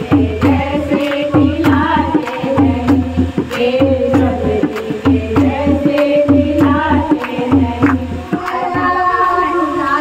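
A group of women singing a devotional kirtan to a dholak drum and handclaps. The drum and clapping stop about eight seconds in, and the voices carry on.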